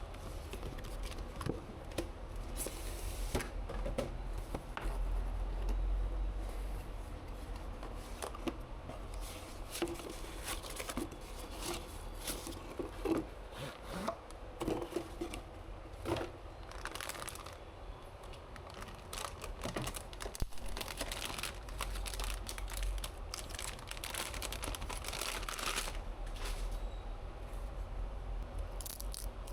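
Plastic packaging or protective film crinkling and tearing, with scattered light clicks and knocks of parts being handled. There are longer rustling stretches about three seconds in and again near the end.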